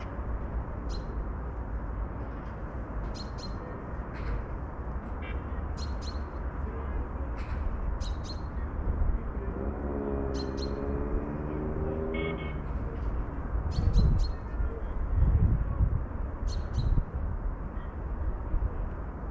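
Birds chirping in short, sharp calls every second or two over a steady low rumble, with a few low thuds about three-quarters of the way through.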